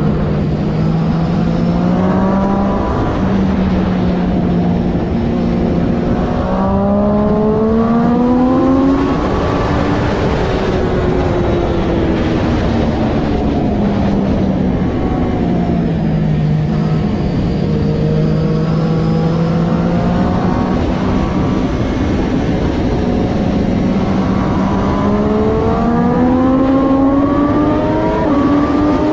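Triumph Daytona 675R's inline three-cylinder engine at racing pace, revving up in steps through upshifts, dropping in pitch as it slows for a corner midway, running lower for a while, then revving up hard again near the end.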